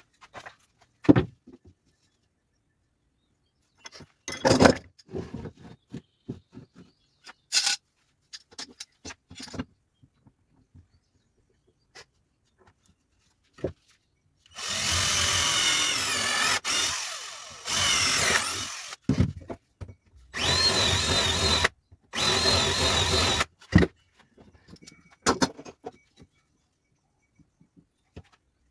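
Power drill running into wood in three long bursts a little over halfway through, the first about four seconds long. Before the bursts come scattered knocks and clicks of wood and tools being handled, and a few more follow them.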